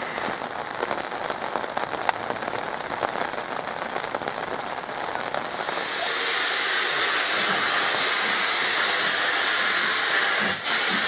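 Steady rain hiss. About six seconds in, a louder, higher hiss of steam takes over as the cylinder drain cocks of the leading steam locomotive of a double-header are opened and it moves off.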